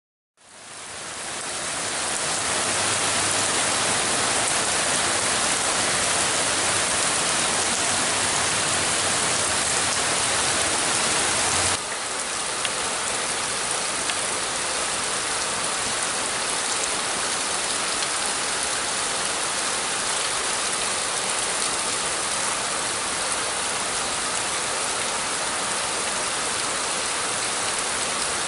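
Heavy rain pouring down steadily. It fades in over the first couple of seconds; about twelve seconds in it drops slightly in level and a faint low hum under it stops.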